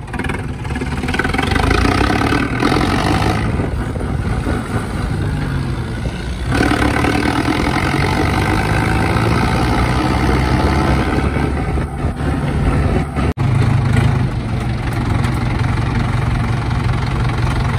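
Diesel tractor engine running under throttle while driving, its note rising and falling with the revs and changing abruptly a couple of times.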